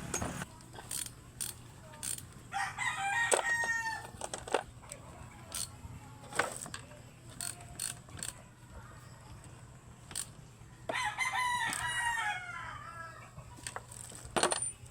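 A rooster crowing twice, each crow about two seconds long, with scattered sharp clicks and knocks in between.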